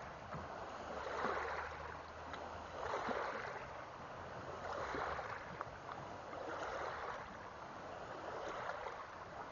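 Small waves lapping at the water's edge, swelling and fading about every two seconds, with a few faint clicks.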